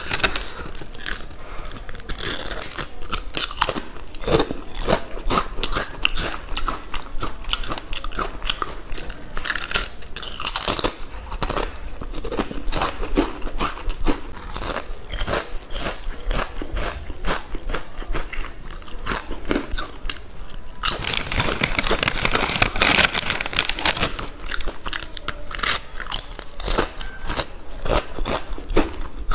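Close-miked crunching and chewing of Balaji potato chips, a fast run of crisp cracks and crackles. A denser, more continuous stretch of crackling comes about two-thirds of the way through.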